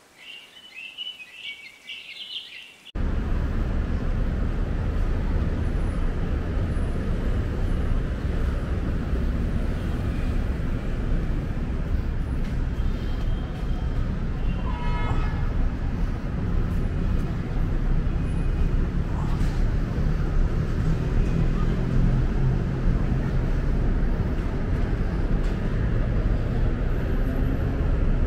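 Steady city traffic noise from passing vehicles, starting suddenly after a few seconds of quiet birdsong, with a short horn-like toot about halfway through.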